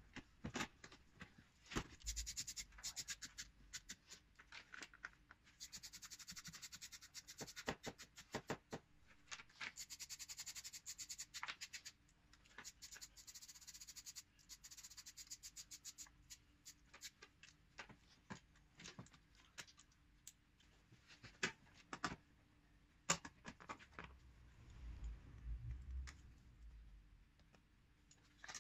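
Faint, scattered clicks, taps and scrapes of parts being refitted by hand in an engine bay: pipes, clips and plugs going back on, with a short low rumble near the end.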